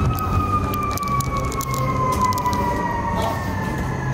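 An emergency vehicle's siren, one long wail whose pitch falls slowly and steadily, over a low rumble of city traffic.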